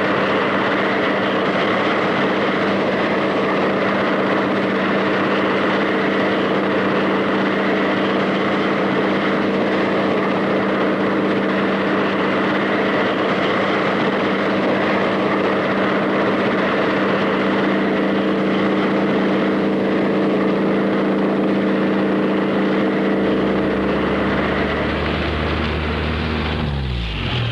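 Steady drone of an aircraft engine: a constant hum with several held tones over a hiss. Near the end a deeper hum joins, and the pitch slides downward just before it stops.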